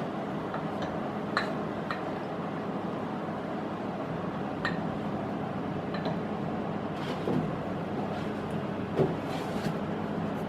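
Light metallic clinks and knocks, half a dozen spread out, as a drill bit and tooling are handled on a milling machine, over a steady background hum.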